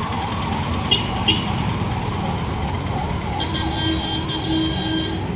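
Road traffic rumble with a warbling, siren-like tone over it. Two short clicks come about a second in, and a higher steady tone joins past the middle.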